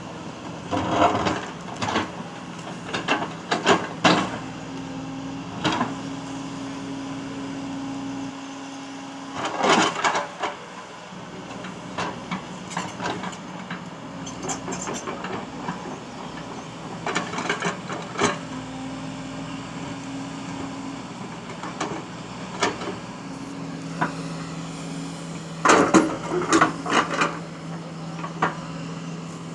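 Excavator's diesel engine running steadily, with a low hum whose tone steps up and down as the hydraulics are worked. Bursts of clanking knocks, from bucket and rock striking each other, come in clusters several times.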